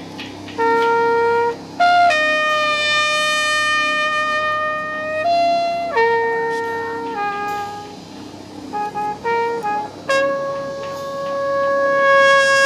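Marching band brass and wind instruments playing a slow melody of long held notes in a single line, with the last note swelling louder near the end.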